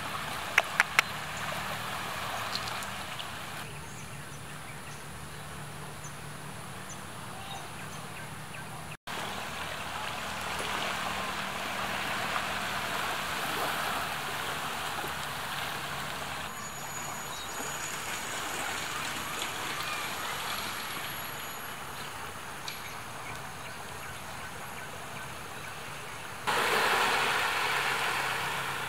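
Seaside ambience: small waves from a calm sea lapping at the sand and sea wall, as a steady wash of water, under a faint, steady low drone of a distant engine. The ambience steps louder or softer abruptly several times and is loudest near the end, and a few sharp clicks come about a second in.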